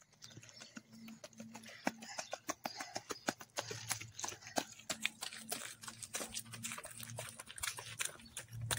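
Faint footsteps crunching on gravel as children run: a quick, irregular run of short crunches that grows busier after about two seconds.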